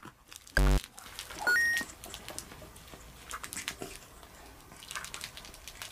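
A short buzzy sound effect, then a quick beep that steps up in pitch, followed by soft rustling and crinkling of a plush nosework toy as a Pomeranian noses at it, with light pattering of paws on a hard floor.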